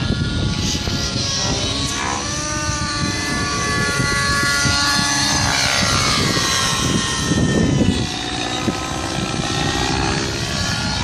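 Radio-controlled helicopter flying, its high rotor and motor whine rising and falling in pitch.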